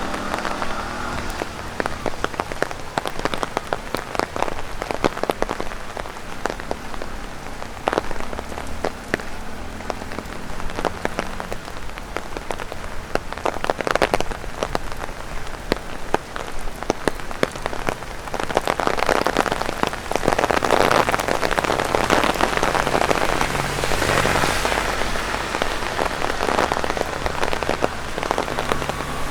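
Rain falling on an umbrella, with many separate drops tapping on it, including drops shed from overhanging tree leaves. It grows denser and louder about two-thirds of the way through.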